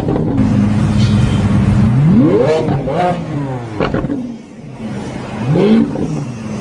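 Car engine running steadily, then revved in several quick rising sweeps of pitch, with a sharp click about four seconds in.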